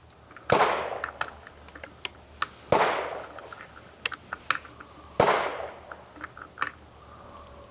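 Three gunshots about two and a half seconds apart, each trailing off in a long echo, with small metallic clicks between them.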